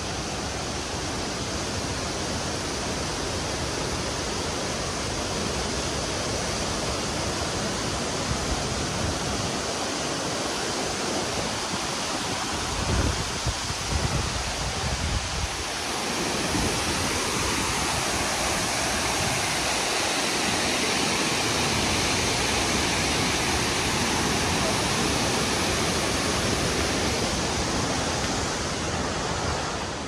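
Steady rushing roar of Victoria Falls, water plunging into the gorge.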